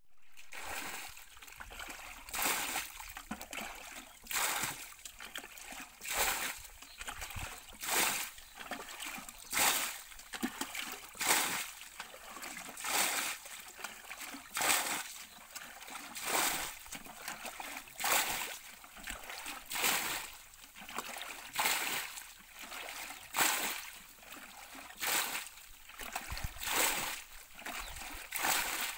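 Water splashing in a steady rhythm, one splash about every second and a half to two seconds, over a continuous wash of water.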